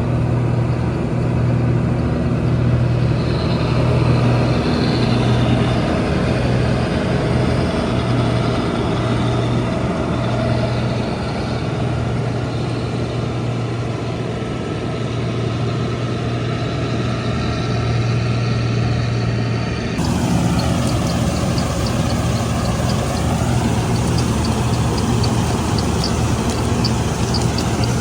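Combine harvester's diesel engine running steadily, a low even hum. The sound changes abruptly about twenty seconds in, and from then on faint, fast high ticking is heard above the engine.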